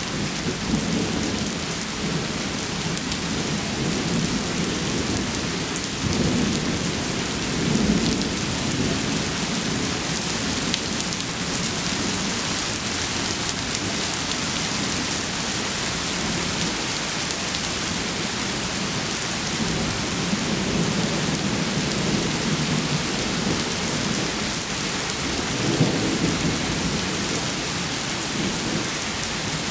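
Steady rain falling on pavement, with thunder rumbling again and again underneath it. The rumbles swell loudest about eight seconds in and again near the end.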